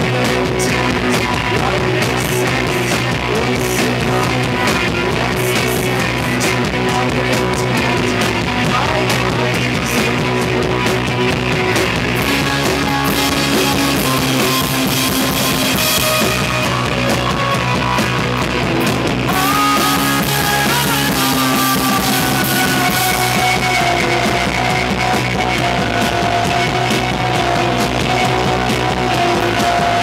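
A rock band playing live: electric guitars, bass and drums, with vocals.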